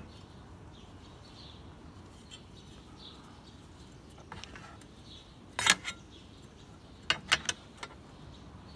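A metal bracket knocking and clattering against the plastic shroud of a dual electric cooling-fan assembly as it is worked into place: one sharp knock a little past halfway, then a quick run of three or four knocks near the end. Faint bird chirps sound in the background.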